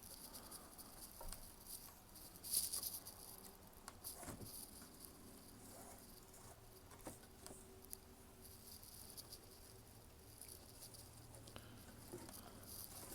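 Faint rustling and scraping of string being drawn through the holes of a wooden lantern, with a few light clicks and knocks from the wood, the most distinct about two and a half and four seconds in.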